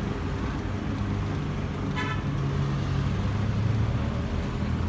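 Street traffic noise: a steady low hum with one short horn toot about two seconds in.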